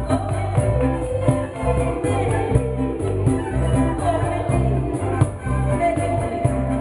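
Live band music: a woman singing into a microphone over acoustic guitar and electric keyboards, with a steady beat and bass.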